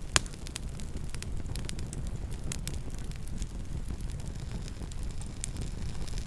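Campfire crackling, with irregular sharp pops and snaps from the burning wood over a steady low rumble. One loud pop comes just after the start.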